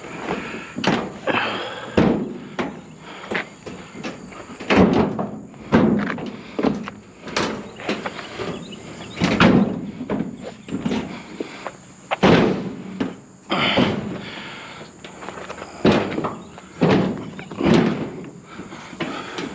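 Sheet-metal clothes dryer being handled and loaded onto a trailer: irregular hollow thuds, bangs and scrapes of its metal cabinet, the loudest knocks about five, nine and twelve seconds in.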